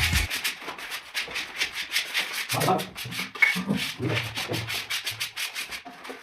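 Rapid, even back-and-forth rubbing strokes on a laminate sheet over plywood, about six a second, with a few dull low thumps about three to five seconds in.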